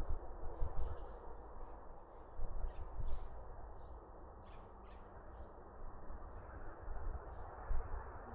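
Small birds chirping in short, high notes two or three times a second over a steady hiss, with a few soft, deep swells from a sleeping puppy's breathing close by.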